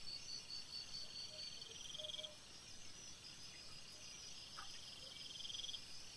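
Night insects trilling: high, fast-pulsing trills that come in bouts of a second or two, over a faint steady hiss, with one small click about four and a half seconds in.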